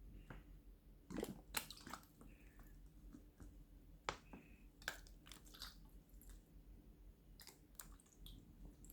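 A bottle being handled, making faint, irregular clicks and crackles, with the sharpest ones about a second in and again about four seconds in.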